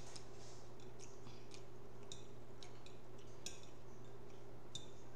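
Metal fork clicking and scraping against a plate while cutting into a casserole: about half a dozen sharp, irregularly spaced clicks over a steady low hum.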